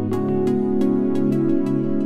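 Background music: a gentle new-age instrumental of held chords with notes struck a few times a second, the chord changing just after the start.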